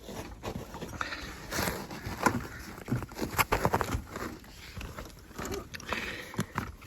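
Irregular small knocks, clicks and scrapes of hands working around the snowmobile's open belt and clutch compartment, with a few sharper knocks about two and three and a half seconds in.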